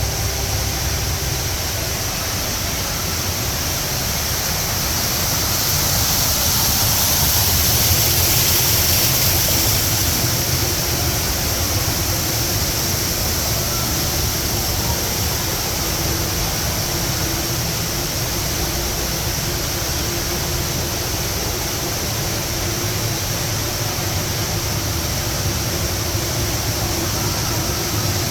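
Steady rush of falling water from the Rain Vortex indoor waterfall, swelling a little about six to ten seconds in.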